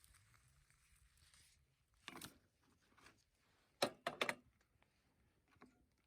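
Mostly quiet, with a few short handling noises: one about two seconds in and a quick cluster of three or four close together near four seconds.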